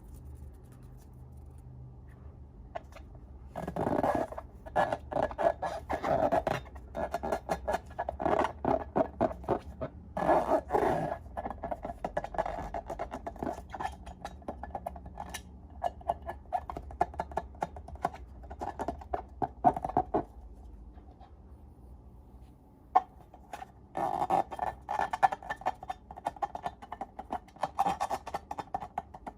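Slime being squeezed and worked by hand: dense sticky crackling and popping in two long stretches, with a quiet pause in between.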